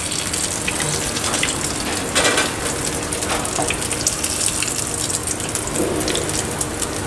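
Soyabean and chana dal kababs shallow-frying in hot oil: a steady sizzle with fine crackling. A slotted spatula knocks and scrapes in the pan a couple of times as patties are lifted out.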